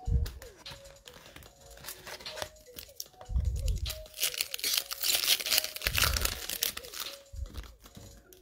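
A foil trading-card pack wrapper being torn open and crinkled by hand, with a few dull bumps of handling against the table.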